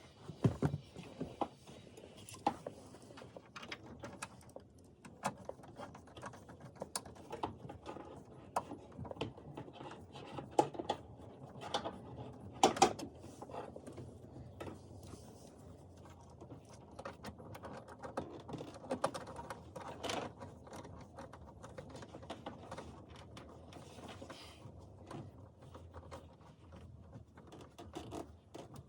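Hands working plastic dashboard parts and a replacement instrument cluster into place: scattered clicks, taps and rattles, with a few sharper knocks now and then.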